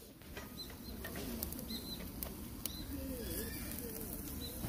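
Quiet outdoor ambience: birds calling, a few short high chirps and a low rising-and-falling call about three seconds in, over a steady low rumble with a few faint clicks.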